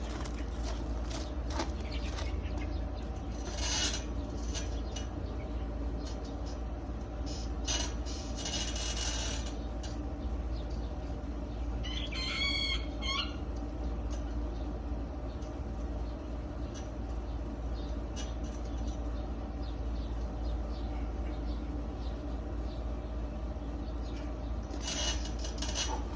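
A rooster crows once, about halfway through, over a steady low outdoor rumble with a few brief hissy swells.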